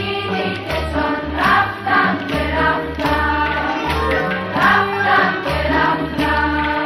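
Girls' choir singing a Persian song in unison over instrumental accompaniment with a steady, pulsing bass.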